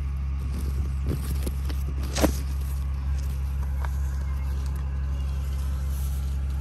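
Cherry-tree leaves and branches rustling as cherries are picked by hand, with a few sharp snaps and clicks in the first half, the loudest about two seconds in, over a steady low rumble.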